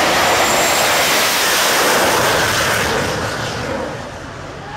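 Jet dragster's turbojet on full afterburner, a loud roar as the car races down the drag strip, fading about three seconds in as the car draws away.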